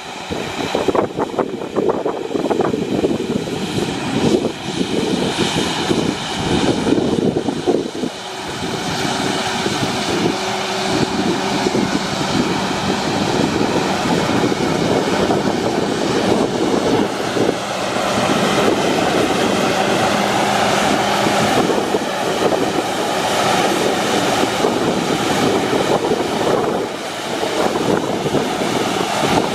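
Engine of a large farm machine running steadily under load, with a steady hum and a higher whine that wavers slightly.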